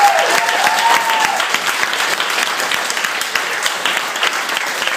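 Audience applauding: many people clapping at once, steadily.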